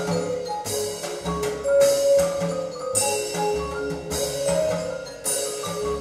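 Music played back through hi-fi bookshelf speakers driven by a Yamaha A-S3200 amplifier. It has pulsing bass notes, a melody of short pitched notes like mallet percussion, and bright high strikes recurring every second or so, the treble being what is on test.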